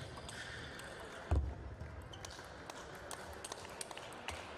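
Table tennis rally: the celluloid ball clicking sharply off the bats and the table, several times at uneven intervals. A heavy low thump stands out about a second in.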